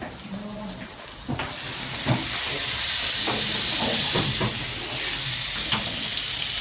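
Chicken frying in a hot pan: a sizzle starts about a second in and carries on steadily, with several short knocks of a utensil against the pan.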